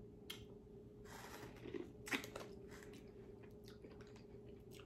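A person biting kernels off a boiled corn cob and chewing them, with a few faint crunches.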